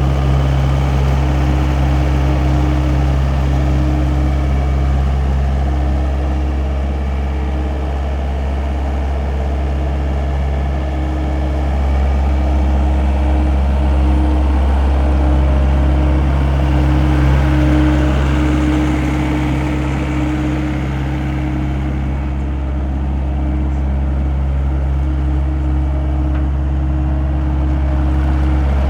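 John Deere CT322 skid steer's diesel engine running steadily, with a slight rise in level midway.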